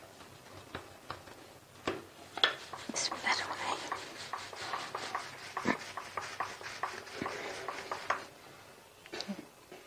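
A wooden rolling pin rolling out a ball of paratha dough on a flour-dusted silicone mat. A few soft knocks come as the dough is pressed and dusted, then a quick run of light clicks and taps as the pin goes back and forth for about five seconds.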